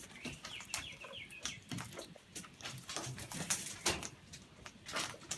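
Birds calling: a quick run of short notes that step down in pitch in the first second and a half, with sharp clicks or knocks scattered through.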